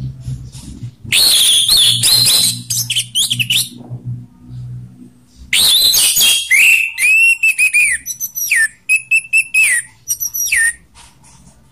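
Orange-headed thrush singing its loud ngeplong song: a loud phrase of clear whistles about a second in, then a longer phrase from about halfway to near the end, with sliding whistled notes and quick repeated notes.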